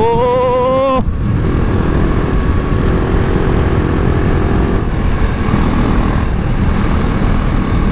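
KTM RC 390's single-cylinder engine running at road speed under heavy wind rush on the rider's camera microphone. The wind noise is the loudest part, with the engine's steady note faint beneath it.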